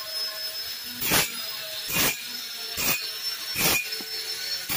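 Stick arc welding on steel tube: five short bursts of arc crackle, nearly a second apart, as the welds are laid down, over a faint steady high whine.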